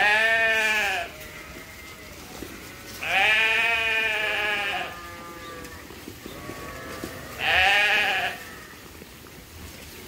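Sheep bleating three times, loud calls with the middle one the longest, nearly two seconds.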